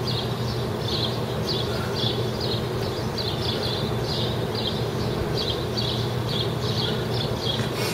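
Outdoor ambience: a steady low hum with short, high chirps repeating about twice a second.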